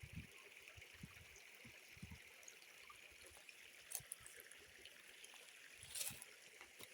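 Faint, steady trickle of a shallow creek, with two brief clicks about four and six seconds in.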